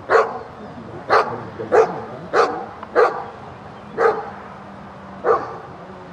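A Briard barking at a decoy approaching the basket it is guarding. About seven short, sharp barks, spaced half a second to a second apart and slowing after the first few.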